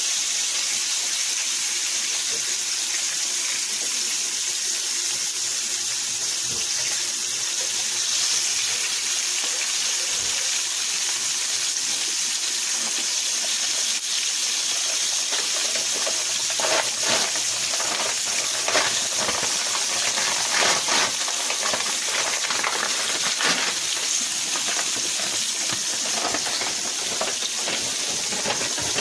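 Flour-coated chicken liver frying in olive oil in a pan: a steady sizzle, with sharper crackles and pops from about halfway through.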